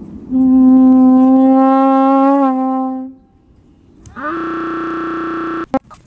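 Two long, steady held notes with a horn-like sound: the first lasts about two and a half seconds and wavers briefly just before it ends, and after a short gap a second, slightly higher note slides up and holds for about a second and a half.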